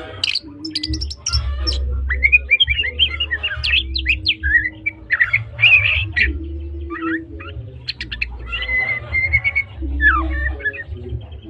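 White-rumped shama (Medan murai batu) singing a rapid, varied song of whistles, slurred notes and trills, phrase after phrase without pause. A low hum comes and goes underneath.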